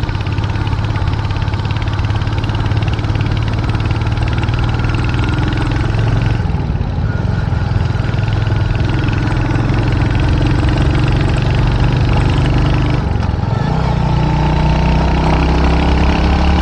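Royal Enfield 350 single-cylinder motorcycle engine running steadily under way, over a steady rushing noise. The engine note eases off briefly twice, about six and thirteen seconds in.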